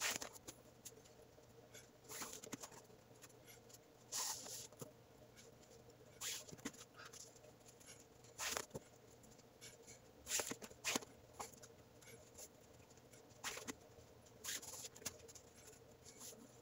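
Faint rustling and swishing of 550 paracord as strands are pulled over and under and tightened by hand in a braid: short scratchy bursts, one every second or two, over a faint steady hum.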